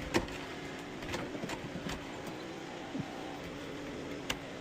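A handful of scattered sharp clicks and scrapes from hand work at a nail-on electrical box and the drywall around it, over a steady mechanical hum.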